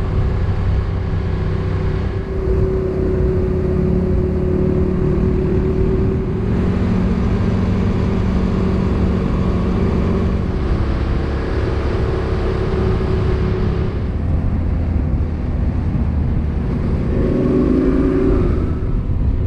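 Motorcycle engine running at road speed with wind and road noise, heard from a camera mounted on the bike; the sound changes abruptly every few seconds, and near the end the engine pitch rises as the bike accelerates.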